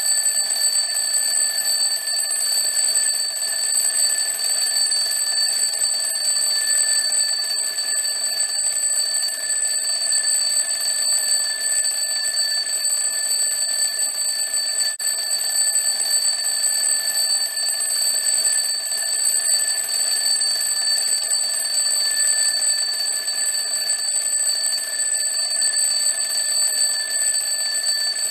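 Old-fashioned alarm clock bell ringing without a break, a steady, loud metallic ring.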